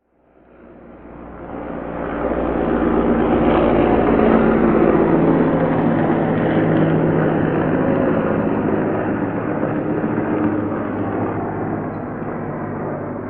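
Heavy military transport helicopter flying, its engines and rotors making a loud, steady drone with a low hum. It swells up from silence over the first two seconds and eases off slightly near the end.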